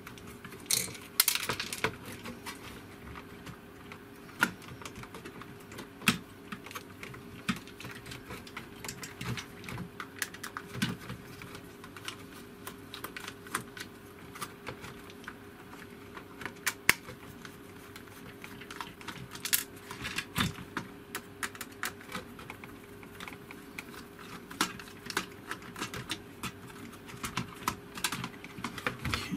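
Irregular clicks, taps and light rattles of hard plastic parts and a hand tool being handled as a Daewoo SDA1247's water-heating assembly is pulled apart, over a faint steady hum.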